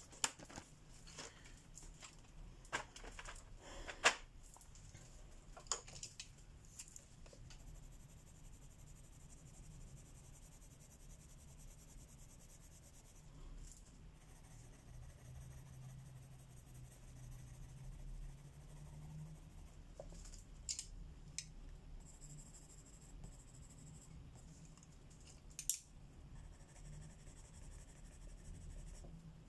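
Faint scratching of a colouring pencil on paper, with light clicks and taps from handling pencils: many in the first seven seconds, a few more later, and one sharper tap near the end.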